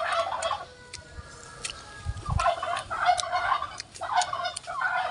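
Domestic turkeys gobbling, several bursts one after another.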